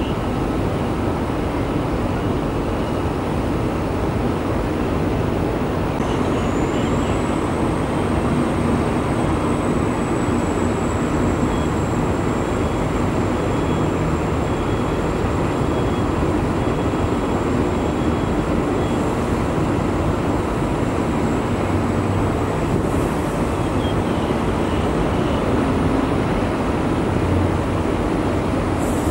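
Steady road traffic noise with a continuous low rumble. A thin high whine comes in about six seconds in, rises briefly and then holds steady until near the end.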